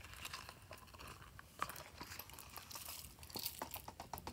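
Hands handling a silicone pop-it fidget case: faint rubbery rustling with scattered light clicks, more of them near the end.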